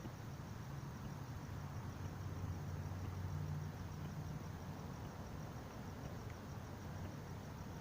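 Faint night ambience: crickets chirping in a fast, even, high-pitched pulse over a steady low hum. No firework bursts are heard.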